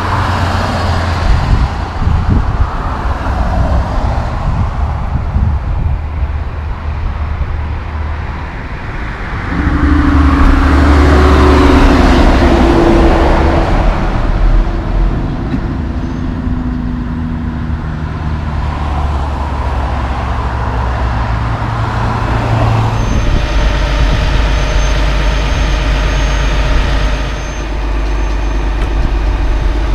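Highway traffic passing, loudest about ten seconds in as a loaded Peterbilt 379 car carrier goes by with its diesel engine running and tyre noise rising and falling. In the last few seconds a heavy diesel truck engine idles steadily.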